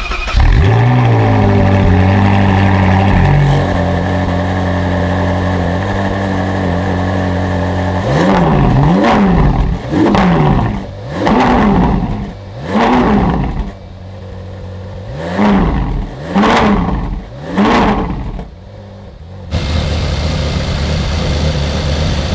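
Ferrari 458's naturally aspirated V8 starting up just after its new spark plugs were fitted: it catches with a short flare and settles into a steady idle. It is then blipped about seven times in quick succession, each rev rising and falling sharply, and it idles again near the end.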